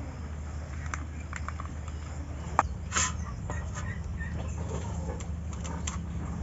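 Scattered light clicks and taps of a knife and a ripe mango against a steel plate and bowl as the mango is peeled, over a steady low hum.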